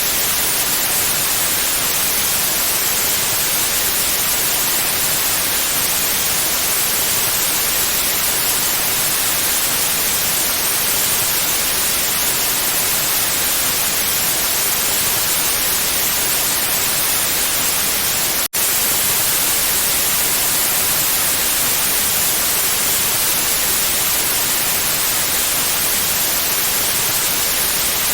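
Pure white noise: a steady, even hiss, brightest in the treble, with a split-second break about two-thirds of the way through.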